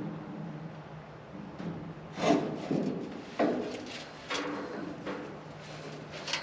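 A series of short scrapes and knocks, roughly one a second from about two seconds in, as parts are handled and fitted while a deer feeder is being assembled.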